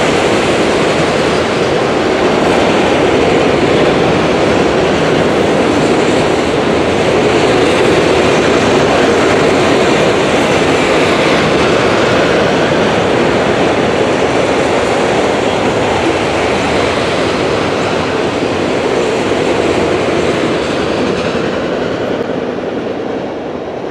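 Loaded autorack cars of a freight train rolling past, a steady loud noise of steel wheels on rail that starts to fade near the end as the last cars go by.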